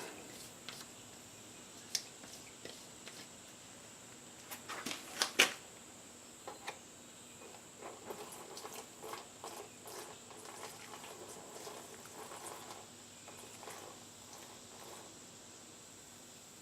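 Light clicks and knocks of a paint can and plastic mixing cup being handled, loudest about five seconds in. Then reducer is poured into automotive enamel in the cup, a soft irregular trickle.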